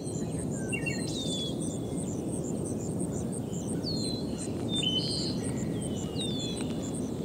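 Countryside ambience: birds calling with short falling whistles, several times, over a high chirp that repeats evenly a few times a second and a steady low background rumble.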